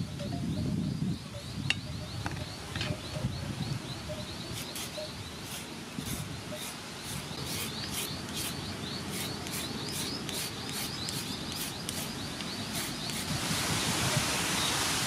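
Julienne peeler scraping down a raw carrot in quick repeated strokes, about two to three a second, cutting it into thin shreds.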